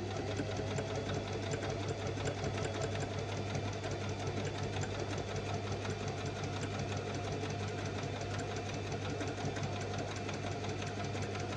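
Electric sewing machine running steadily under its foot pedal, stitching fabric: a steady motor hum with rapid, even needle ticking that stops just after the end.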